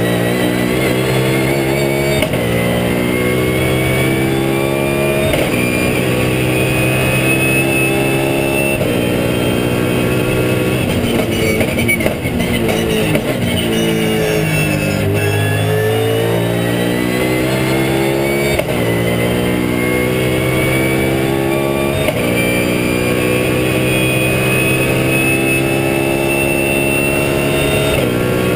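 Race car V8 engine of a BMW Z4 GT3 at full throttle, heard from inside the cockpit. The pitch climbs and drops at each upshift. About twelve seconds in it falls through braking and downshifts, then climbs through the gears again.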